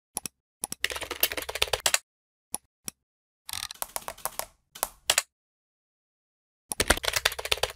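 Computer keyboard typing in quick bursts of key clicks, four runs of typing with two single clicks between them.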